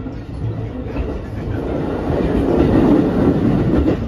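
Running noise inside a JR West 223 series 2000-subseries trailer car (SaHa 223-2175): a steady rumble of wheels on rails, swelling louder about two seconds in and easing back near the end.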